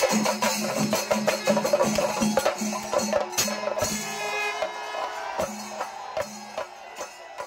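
Kerala chenda melam: a group of chenda drums beaten with sticks together with brass ilathalam hand cymbals, playing a fast, dense rhythm over a steady held tone. The whole ensemble slowly fades out toward the end.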